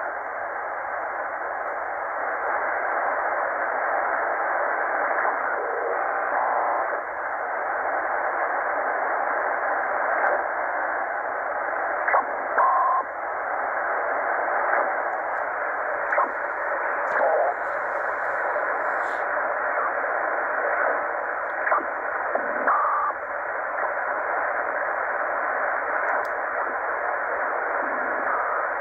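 Tecsun PL-990x shortwave receiver in upper sideband being tuned slowly up the 26 MHz band: a steady hiss of band noise through its speaker, with a few brief whistles and sliding tones as the tuning passes over signals.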